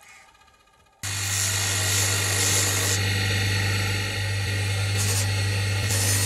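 Electric motor driving a polishing wheel, with a green marble carving pressed against it. A steady low hum with a rubbing hiss of stone on the wheel, starting abruptly about a second in.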